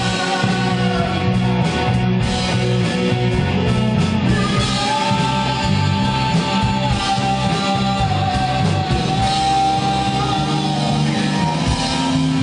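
Live rock band playing a song: electric guitars, bass and drums with a male lead singer.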